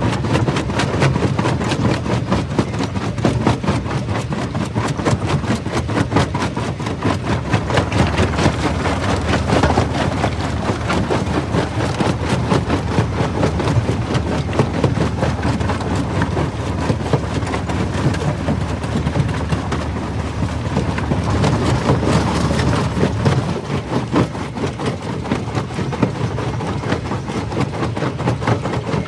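Jaw crusher running and crushing stone: a dense, continuous clatter of cracking rock over a steady low machine rumble.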